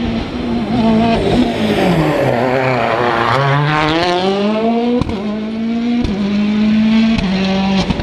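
Rally car engine at high revs. The revs drop sharply, as when braking and downshifting into a bend, then climb again as the car accelerates away, with a couple of sharp cracks and stepped changes in pitch.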